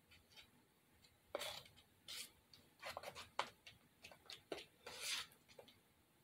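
Plastic spoon scraping and scooping spackle in a plastic tub: a faint, irregular run of short scrapes and a few light clicks.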